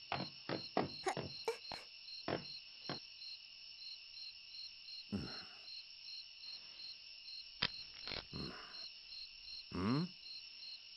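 Crickets chirping steadily in an even, pulsing chorus: a night-time ambience track. A few short clicks sound in the first seconds, and there are brief swishes later, with a short voice-like hum near the end.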